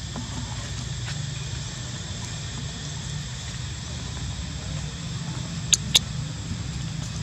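Two short, sharp high-pitched squeaks from a baby monkey, a fraction of a second apart, about six seconds in, over a steady low outdoor rumble.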